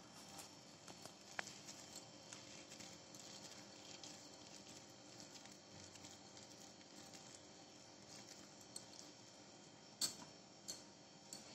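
Near silence: faint room hum with a few soft clicks and taps from handling soft food and plates, the clearest about ten seconds in.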